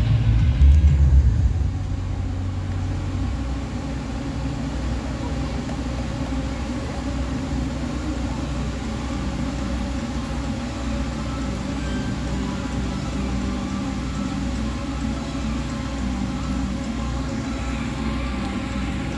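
Swarm of light-show drones hovering and repositioning overhead, their many propellers making a steady hum of several held tones over a low rumble.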